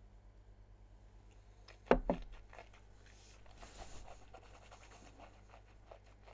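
A glass whisky tasting glass set down on the tabletop about two seconds in, a quick double knock. Faint rustles and breaths follow while the whisky is tasted.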